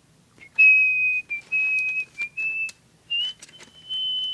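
A person whistling a slow run of held notes, the pitch stepping up to a higher note near the end, with light clicks scattered through it.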